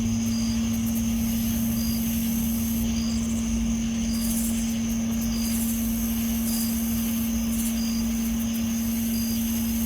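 Steady droning hum with a thin high whine above it, a 'nging' sound from the sky, and a short high pip repeating about every second and a bit over low rumbling.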